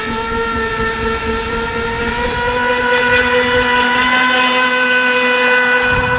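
Brushless electric motor of a 1/6-scale RC jet ski, a 1500kv 10-pole unit on a 4S LiPo, running at speed: a steady high whine that rises slightly in pitch. Rushing water and spray are heard under it in the first few seconds.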